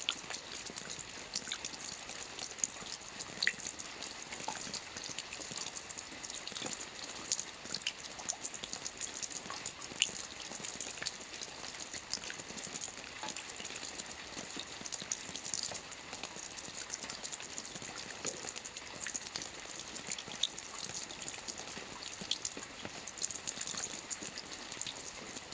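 Steady rain: an even hiss of rainfall with many individual drops ticking on a surface.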